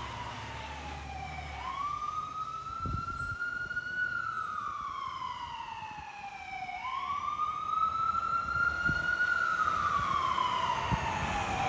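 Pumper fire engine's siren sounding a slow wail: it climbs quickly, holds high, then sinks slowly, about every five seconds, twice through and starting a third near the end. A low engine rumble sits beneath it at the start.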